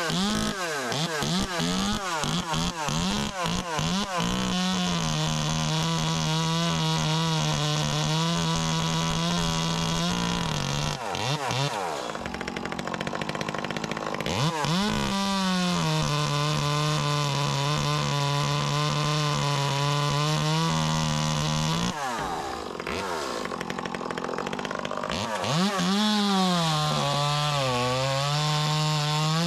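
Echo two-stroke chainsaw revving up and down, then held at high revs for several seconds at a time with drops back to idle in between. Near the end it cuts into a peach tree stub, the engine pitch dipping and wavering as the chain bites into the wood.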